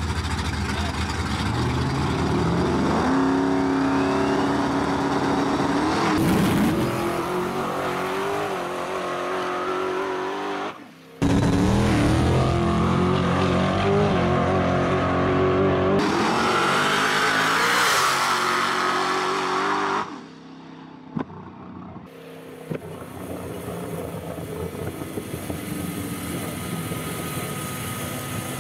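Drag-race pickup truck engines revving and accelerating hard, the pitch climbing a few seconds in and then holding high. The sound cuts off abruptly twice, and the last third is quieter engine noise.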